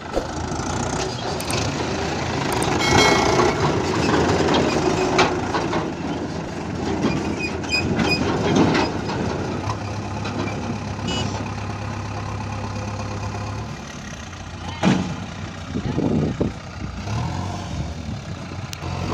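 Diesel engines of a Mahindra 575 tractor and a JCB backhoe loader running, with a steady engine hum and several sharp knocks along the way.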